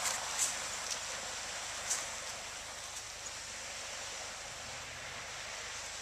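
Steady outdoor hiss, easing slightly, with a few soft clicks in the first three seconds.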